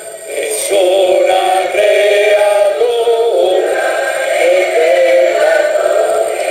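A hymn sung by voices with musical accompaniment, moving in slow, held notes, with a thin sound lacking bass.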